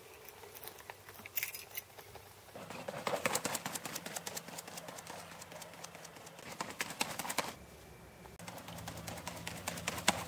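Footsteps on pavement: a quick, uneven run of taps and clicks that thickens a couple of seconds in, eases off, and picks up again near the end.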